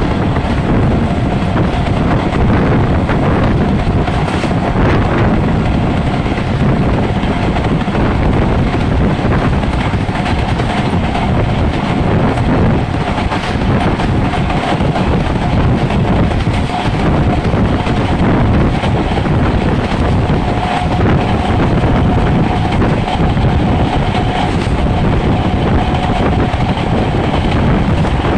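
Passenger train running at speed, heard at an open carriage window: a steady loud rumble of wheels on rail with rushing air, and a faint steady whine above it.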